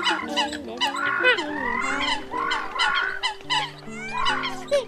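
A flock of Eurasian coots calling over one another: many short, overlapping calls and clicks with no break.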